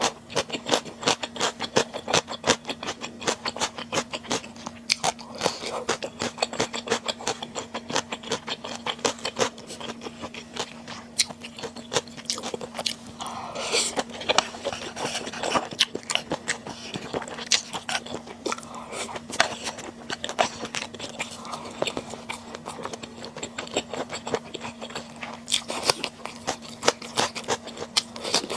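Close-miked chewing of stir-fried webfoot octopus: a steady run of wet smacking and clicking mouth sounds, several a second, with a short rush of noisier sound about halfway through. A faint steady hum sits underneath.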